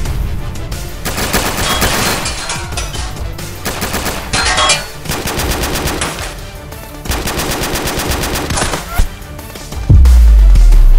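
Volleys of rapid automatic gunfire, several bursts one after another, as film action sound effects. About ten seconds in, a very loud deep boom comes in and holds.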